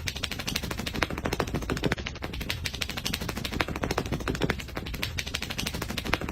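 A rapid, dense, irregular clatter of sharp clicks and taps, many each second, with no steady rhythm.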